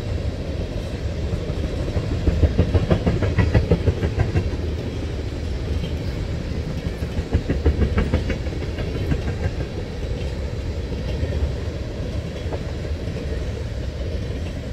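Freight train of tank cars rolling past, its steel wheels running with a steady low rumble. Two bouts of rhythmic clickety-clack from the wheel sets come about two to four seconds in and again around eight seconds, and these are the loudest parts.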